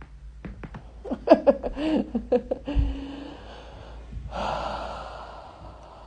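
A person lying face down with someone standing on her back gasps and groans in a quick run of short voice sounds, with sharp clicks among them, then a short hum and a long breath out.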